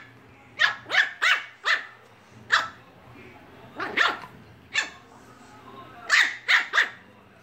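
Dog barking in play: about eleven short barks in bunches of one to four, with pauses of a second or so between the bunches.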